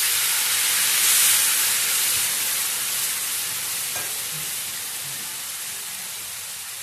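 Water poured into a pan of hot oil and well-roasted onion-and-spice masala, sizzling and hissing. The hiss is loudest about a second in and dies down steadily as the water takes up the heat.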